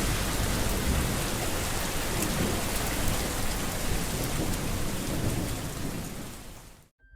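Heavy rain with a low rumble of thunder, fading out near the end.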